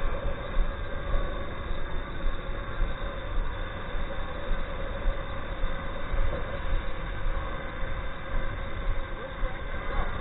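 Swellpro Splash Drone 4 quadcopter lifting off and hovering, its propellers giving a steady whine over a heavy, gusting low rumble.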